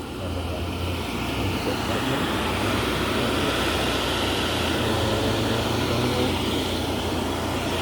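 Steady machine noise: a low hum with an even hiss above it, running unchanged without strokes or rhythm.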